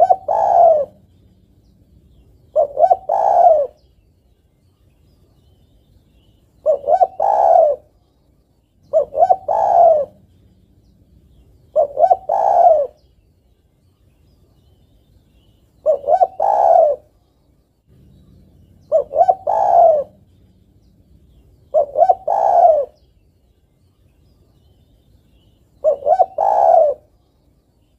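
Female spotted dove cooing: nine coo phrases about every three seconds, each a few short notes running into a longer one. It is a female calling to a male, the kind of call used to lure male doves.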